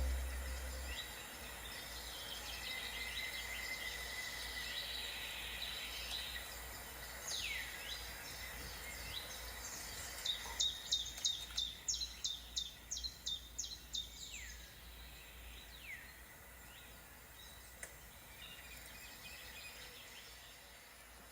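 Wild birds calling in the open air: a few high calls that slide downward in pitch, and around the middle a quick run of about a dozen sharp, high notes at roughly three a second.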